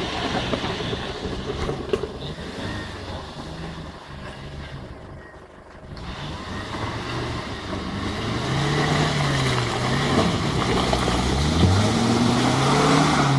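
Off-road 4x4's engine running under load and being revved, its pitch rising and falling again and again. It drops quieter about halfway through, then runs louder with repeated revs through the second half.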